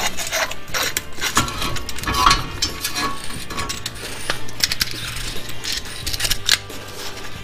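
Brake caliper piston retraction tool being wound in by hand against a Ford Kuga front brake caliper to push the piston back: a run of irregular metal clicks, ticks and scrapes from the threaded rod, its nut and the tool's plates.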